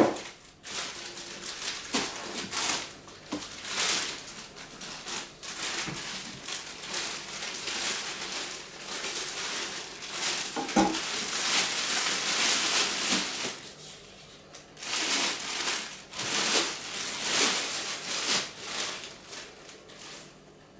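Plastic and foam packing being handled and pulled about, crinkling and rustling on and off, with a few light knocks.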